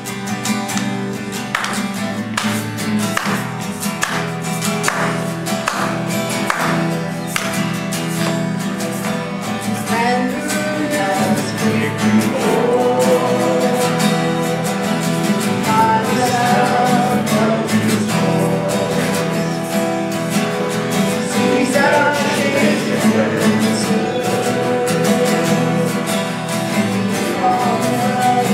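Live worship music: several acoustic guitars strumming, with singing coming in about ten seconds in.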